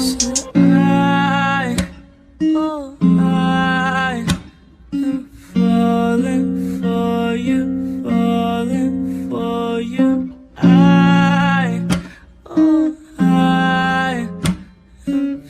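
Background music led by a plucked guitar, playing in short phrases with brief gaps between them.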